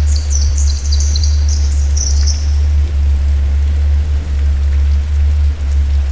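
Steady rain falling in a garden, drops pattering over a continuous hiss, with a steady low rumble underneath. A bird chirps rapidly for the first two seconds or so.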